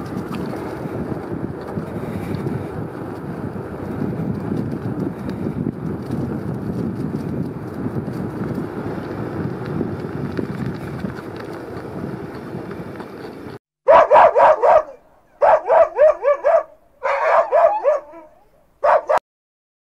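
Steady wind rush on the microphone while moving along a dirt track, cut off abruptly about two thirds in. Then a dog barks in four quick runs of barks, louder than the wind.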